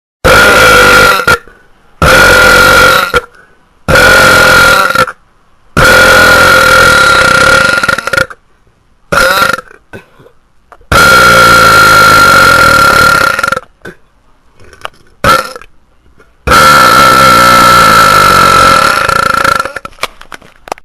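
A person belching a string of long, loud burps, about eight in all with short silent gaps between them. The longest last two to three seconds, and they are loud enough to clip the recording.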